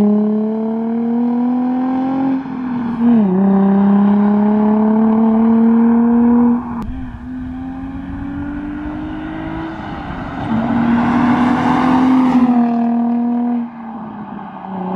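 Nissan 350Z's VQ35DE V6 through an ISR single-exit exhaust, accelerating hard. The engine note climbs in each gear, drops at upshifts about two and a half and seven seconds in, then fades as the car pulls away. It grows louder again from about ten seconds in as the car comes back, with a deep tone.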